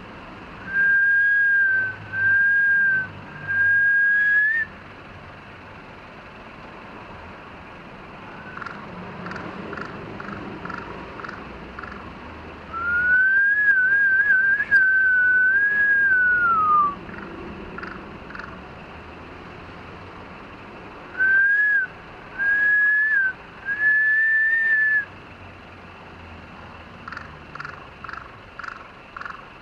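Crow giving clear whistle-like calls: three steady notes of about a second each, a longer wavering note that falls at its end midway, and three more steady notes later, with runs of short clipped notes in between.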